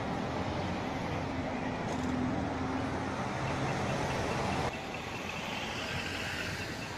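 Road traffic on a busy city street: cars driving past with steady engine and tyre noise. About two-thirds of the way through the sound cuts to a quieter take of the street, where a faint, regular, high ticking can be heard.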